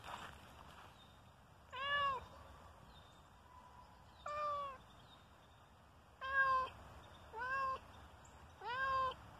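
Domestic cat meowing five times, each meow about half a second long and arching up then down in pitch, spaced one to two seconds apart.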